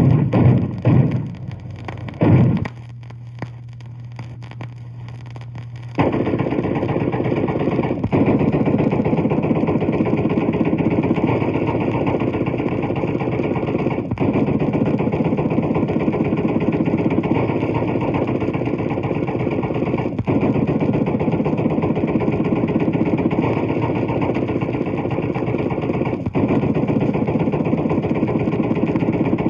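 Anti-aircraft gunfire from a 78 rpm sound-effects record. A few heavy, separate shots come at the start, then a short lull with a low record hum. From about six seconds in there is a long, unbroken stretch of very rapid continuous firing.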